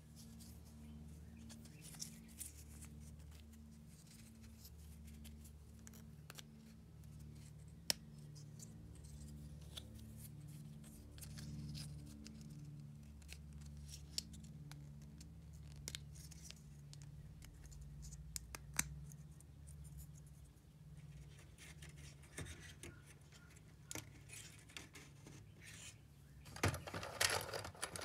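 Faint clicks and light scraping of small walnut kumiko pieces being handled and pressed into the wooden lattice, with a busier run of clicking and scratching near the end. A low, evenly pulsing hum runs underneath.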